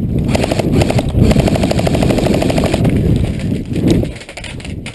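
Airsoft electric gun firing on full auto: a rapid, even rattle of shots for about four seconds that stops near the end.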